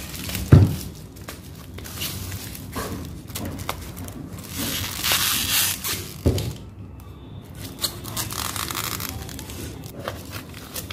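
Plastic wrap being torn and peeled off a foam tray of raw chicken legs, crinkling and rustling in irregular bursts, with a couple of dull bumps.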